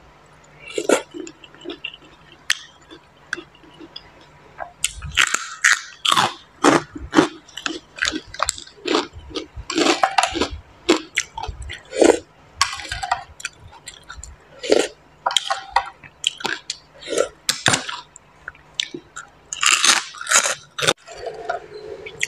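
A person chewing a mouthful of som tam close to a clip-on microphone: many irregular crisp bites and mouth clicks, sparse at first and coming thick and fast from about five seconds in.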